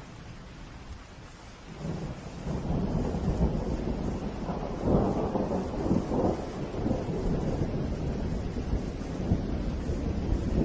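Steady rain with a long roll of thunder that sets in about two seconds in, is loudest near the middle and keeps rumbling in uneven swells.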